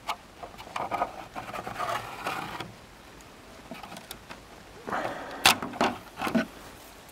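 Hive tool prying a plastic hive-top feeder loose from a wooden hive box: scraping, then a few sharp knocks, the loudest about five and a half seconds in.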